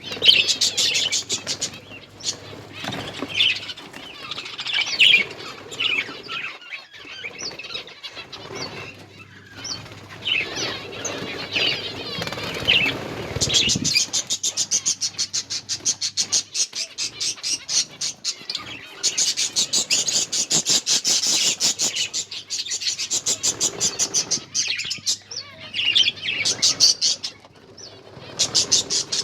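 Pet finches chirping and tweeting in short high calls, with long stretches of rapid, even ticking partway through.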